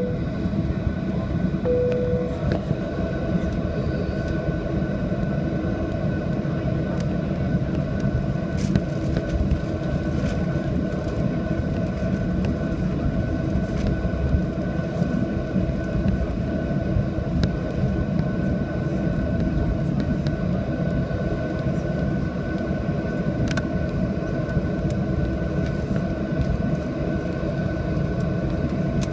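Airliner cabin noise: a steady rumble of jet engines and airflow with a constant whine over it. A short single-pitch tone sounds about two seconds in.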